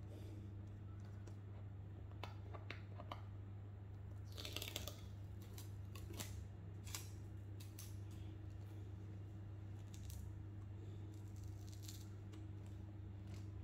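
Phone box packaging being handled and opened: scattered small clicks and rustles, with a short tearing sound about four and a half seconds in, over a steady low hum.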